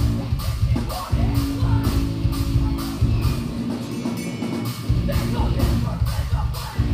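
Rock band playing live: distorted electric guitar and bass over a drum kit keeping a steady, evenly spaced beat. The deepest bass drops out for about a second midway, then comes back in.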